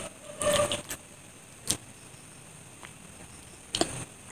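Close-miked wet chewing and mouth smacks from eating a soft white-bread sandwich filled with chocolate cream. A cluster of smacks comes about half a second in, a single click near the two-second mark, and two more close together near the end.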